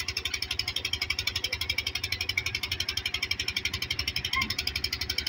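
Irrigation pump engine running steadily with a fast, even putter of about a dozen beats a second, and water gushing from its outlet pipe into a concrete basin.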